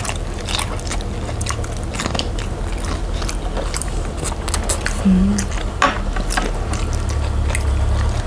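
Close-up eating sounds: chewing and biting of instant noodles and a cheese stick, with many short wet mouth clicks, over a steady low hum.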